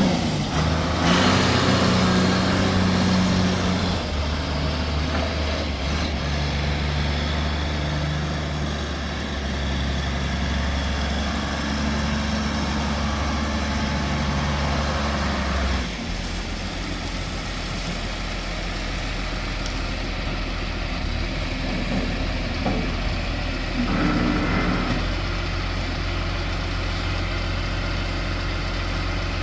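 Diesel engine of a 1997 John Deere 710D loader backhoe running steadily. Its speed changes about four seconds in, then drops to a lower, quieter idle around sixteen seconds in.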